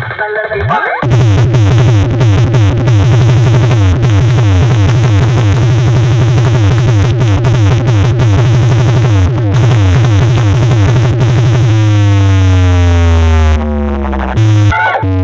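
Electronic DJ competition music played very loud through a large sound-box system. It has heavy, steady bass under rapid stuttering synth strokes, and about twelve seconds in it changes to several falling siren-like sweeps.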